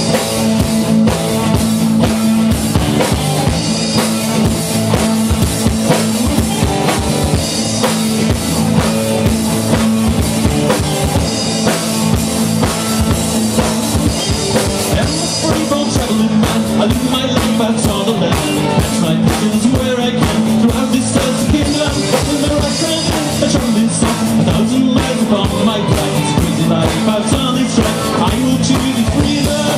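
Live folk-rock band playing: fiddle, acoustic and electric guitars over a drum kit keeping a steady beat.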